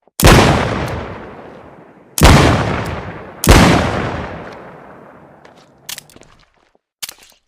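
Smith & Wesson Model 13 revolver fired three times, the second and third shots about a second and a half apart, each shot followed by a long fading echo. A few faint clicks near the end.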